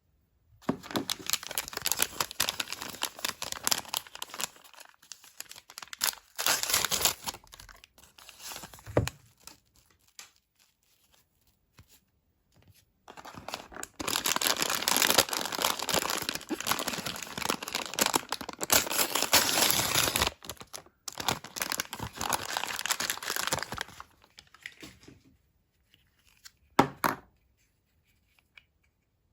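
Doll packaging being torn open and crinkled by hand: a stretch of rough tearing, a pause, then a longer, louder stretch of tearing and crinkling, with one short rustle near the end.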